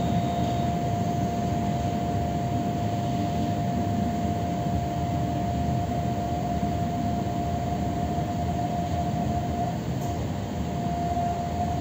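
Electric commuter train heard from inside the carriage while moving: a steady low rumble of wheels and running gear with a constant high hum from the traction equipment, which drops out briefly near the end.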